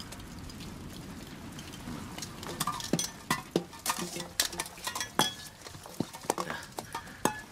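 Steady patter of rain, then from about two and a half seconds in a string of sharp, irregular knocks and light clinks as small hard objects are handled on a wooden table.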